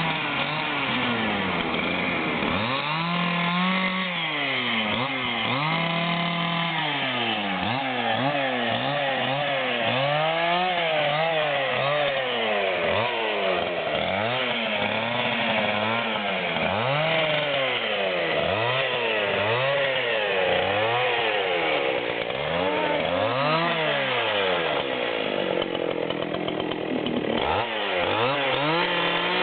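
Husqvarna 268 XP two-stroke chainsaw cutting wood, its engine revving up and dropping back again and again, roughly every one to two seconds, as it bites in and eases off.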